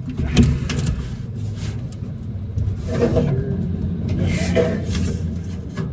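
A vehicle's engine running with a steady low rumble. Several sharp clicks and knocks sound over it, and brief faint voices come in about 3 and 4.5 seconds in.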